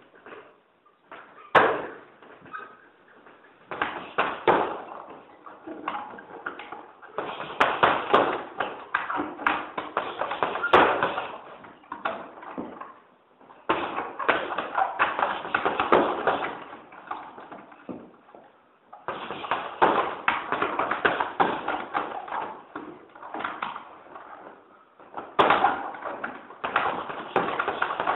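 Gloved punches landing on a hanging heavy bag: one hard single hit, then repeated flurries of rapid strikes separated by short pauses.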